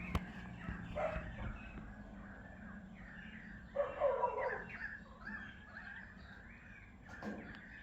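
Birds chirping in the background, with a dog barking briefly about four seconds in.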